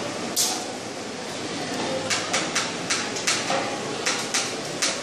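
Classroom clatter: light clicks and taps over steady room noise, one sharp click about half a second in and then an irregular run of several a second from about two seconds in.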